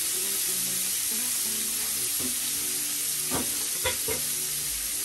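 Black tiger shrimp sizzling steadily as they fry in rendered bacon fat, with a few light knocks between about three and four seconds in.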